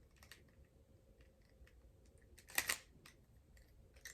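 Plastic parts of a Transformers Siege Ratchet action figure clicking as it is handled and transformed: faint scattered clicks, with a louder cluster of clicks about two and a half seconds in.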